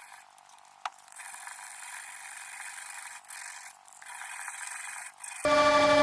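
A faint hiss broken by short gaps, then about five and a half seconds in a machine starts a loud, steady whine.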